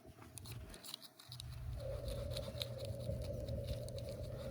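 Microfiber towel wiping polishing compound off an aluminum boat hull: light, scratchy rubbing with many small ticks. A steady low hum sets in about a second in.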